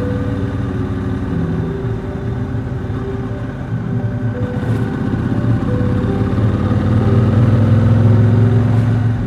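Triumph Speedmaster's 1200 cc parallel-twin engine running under way, its pitch rising and growing louder over the last few seconds as the bike accelerates.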